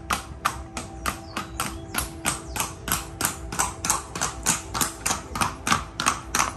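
Shod hooves of a Colombian paso fino horse striking cobblestones at its fast, short-stepping gait: a quick, even clatter of about four to five hoofbeats a second.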